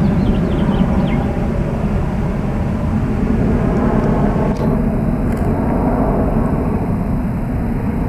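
Airbus A300-600 freighter's twin jet engines heard from the ground as it climbs away: a steady low rumble, heaviest in the bass, slowly fading as the aircraft draws off.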